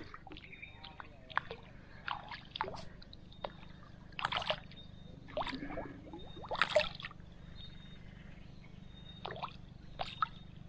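A hooked Nile tilapia splashing at the water's surface as it is pulled in, in short splashes at irregular intervals, with water sloshing in between.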